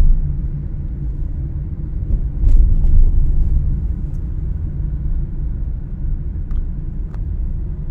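Low, steady rumble of a car driving, heard from inside the cabin, swelling briefly about two and a half seconds in.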